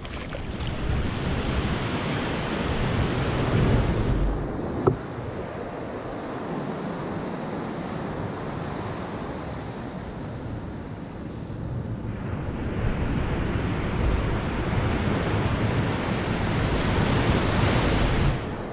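Shallow surf washing over sand, swelling twice, with wind on the microphone. There is one sharp click about five seconds in.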